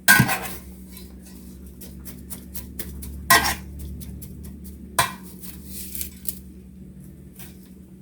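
Kitchen dishes and utensils clattering: three sharp knocks on dishes, near the start, about three seconds in and about five seconds in, with smaller clinks between.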